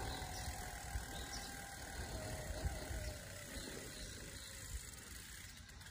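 Bicycle rolling along with its freewheel ratchet ticking faintly over a low road rumble.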